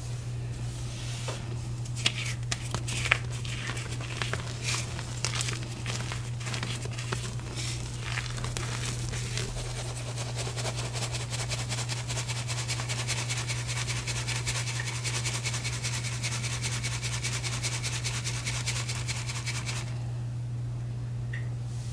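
Reformed gym chalk chunks crackling and crunching in a metal mesh sieve, then a fast, even rattle as the sieve is shaken to sift out the powder, stopping suddenly near the end. A steady low hum runs underneath.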